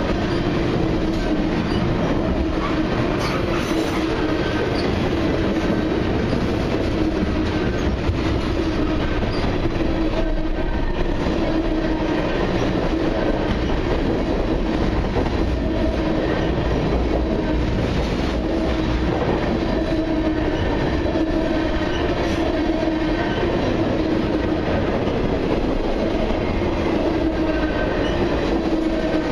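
Long freight train of loaded-looking tank cars rolling past at steady speed: a continuous rumble and clatter of steel wheels on the rails, without a break or change.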